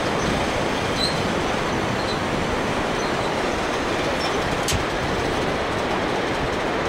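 Steady rushing roar of the Bhote Kosi's whitewater rapids far below, even and unbroken, with a faint click a little over halfway through.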